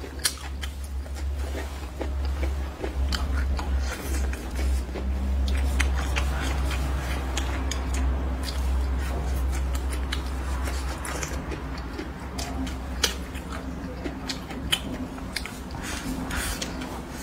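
Close-miked eating: chewing and biting into spicy stir-fried squid, with many short crunchy clicks from the mouth. A low hum sits under the first ten seconds or so.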